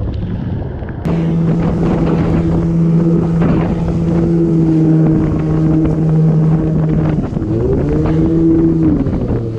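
Outboard motor of a fast-moving inflatable boat running at speed, a steady drone under wind buffeting and water spray. About seven seconds in the engine pitch dips and climbs back as the throttle or load changes. The first second is mostly wind and spray before the engine tone sets in abruptly.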